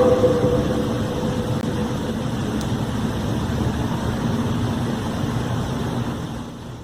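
Steady low rumble with a faint droning hum running through it: one of the unexplained 'strange sounds' heard from the sky. It fades down near the end.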